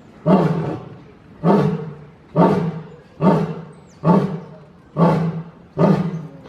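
Lion roaring in a long series of short, deep grunting calls, about seven of them, each starting suddenly and fading, evenly spaced a little under a second apart.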